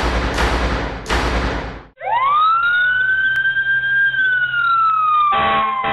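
Fire engine siren winding up to a high wail and then slowly falling in pitch, after a rumbling whoosh in the first two seconds, with a fire engine air horn blast near the end.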